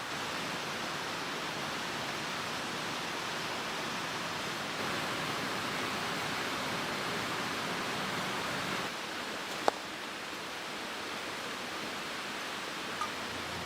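Steady rushing of a mountain stream, with a single sharp click about ten seconds in.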